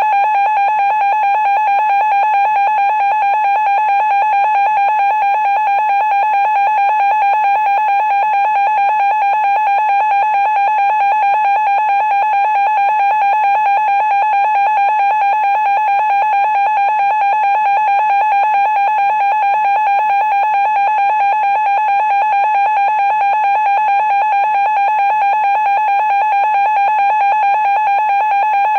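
Emergency Alert System attention tone sounding loud and unbroken, with no voice message following. The severe weather alert failed with the broadcast stuck on the tone.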